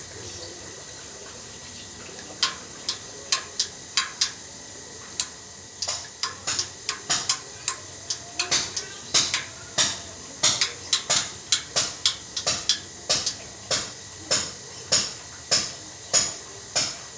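Hand tools clicking and tapping against metal parts: a run of sharp, irregular clicks, starting about two seconds in and coming faster, two or three a second, from about six seconds.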